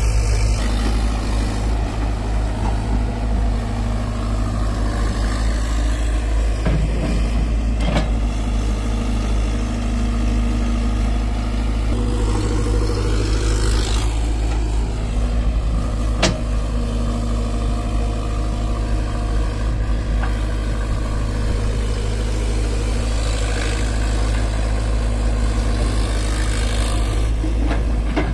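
Tracked excavator's diesel engine running steadily under load as the machine digs soil and swings to load, with a strong low hum. Two sharp knocks stand out, about a third and about halfway through.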